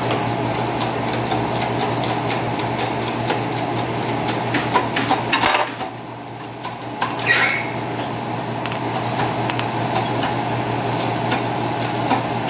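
Old bearing being pressed out of a Ford 7000 water pump: metal clicking and ticking repeatedly as the press forces the shaft and bearing down through the housing, over a steady hum. The sound dips briefly about six seconds in.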